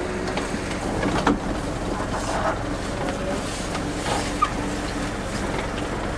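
Steady low rumble of a vehicle, with a few sharp knocks: one about a second in and another past four seconds.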